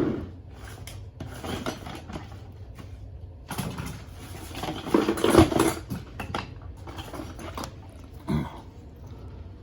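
Hands rummaging in a dishwasher's drain pump opening: irregular scraping, rustling and knocks of plastic parts, loudest about five seconds in, over a steady low hum.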